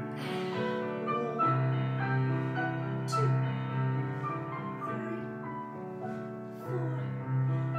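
Classical piano music with held notes. A low bass note comes in about a second and a half in and again near the end.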